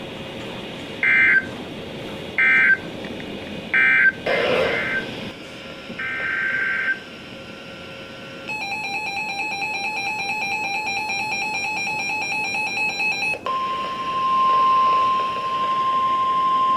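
Emergency Alert System tones: three short warbling data bursts about a second apart, the coded end-of-message signal, then a buzzing two-tone attention signal for about five seconds. About thirteen seconds in it gives way to a steady single tone, the NOAA Weather Radio 1050 Hz alert tone.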